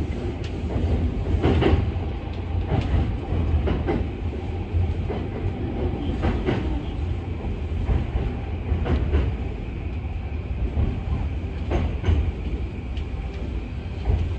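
JR Yamanote Line E235-series electric train running slowly into the station, heard from inside the front car: a steady low rumble with irregular clicks of the wheels over rail joints and points.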